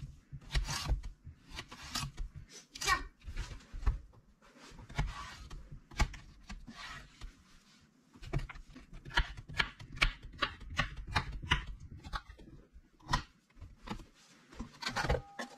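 Kitchen knife cutting a cucumber on a plastic cutting board: repeated short cuts, each knocking on the board, slicing it into strips and then dicing it into cubes, with a brief pause partway through.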